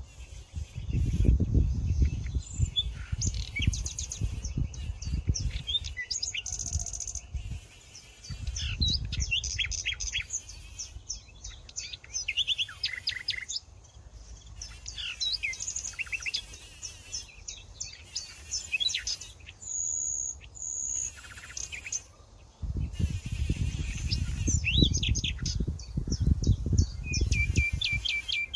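Many small birds chirping and trilling over each other in quick short notes. Loud spells of low rumble come and go, near the start, around a third of the way in and through the last few seconds.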